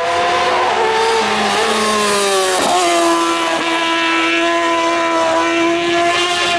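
Racing motorcycle engine at high revs through a bend: its pitch falls over the first couple of seconds, briefly breaks about two and a half seconds in, then holds a steady high note as the bike carries on.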